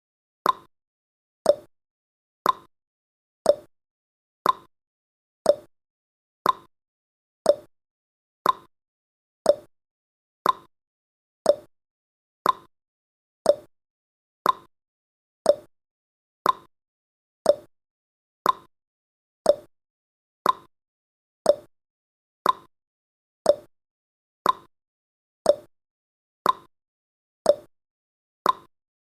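Countdown timer's tick sound effect: a short, pitched click once every second, evenly spaced and quickly dying away.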